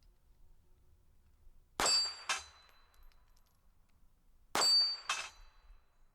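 Steel targets ringing from pistol hits: two quick pairs of sharp clangs about half a second apart, each leaving a high metallic ring that fades.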